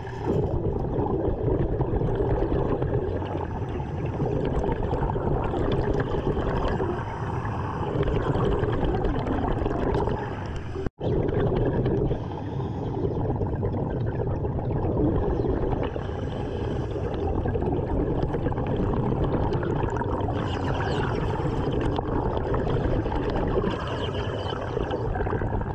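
Underwater sound of a diver's breathing gear: steady rushing and bubbling of exhaled air, heard through the submerged camera, with a brief cut-out about eleven seconds in.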